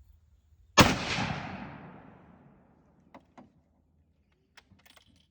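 .30-06 rifle firing a single shot about a second in, the report echoing away over about two seconds. A few faint clicks follow.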